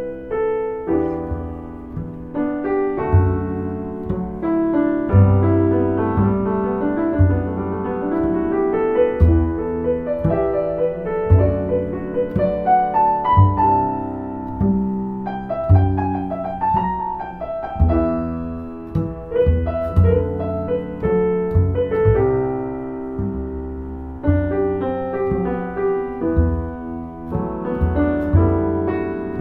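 Solo piano background music, a gentle melody over bass notes.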